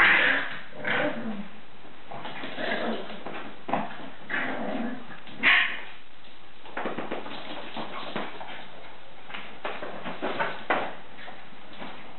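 Staffordshire bull terrier puppies giving short, high cries in a series of bursts, the loudest about five and a half seconds in. In the second half there is a scatter of light taps.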